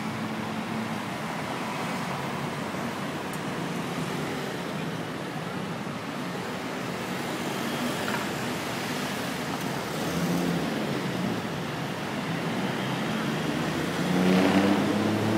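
Dense rush-hour road traffic: a steady wash of engines and tyres. One engine grows louder about ten seconds in, and near the end the loudest one passes, rising in pitch as it speeds up.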